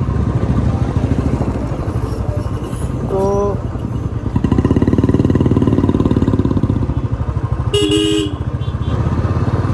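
Royal Enfield Classic 350 BS4's single-cylinder engine thumping steadily while riding, swelling louder for a couple of seconds mid-way. A short vehicle-horn toot sounds about three seconds in, and a louder horn blast near the end.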